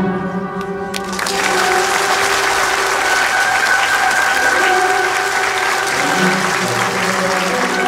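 Opera-house audience applauding, the clapping swelling in about a second in, over a steady held chord of music.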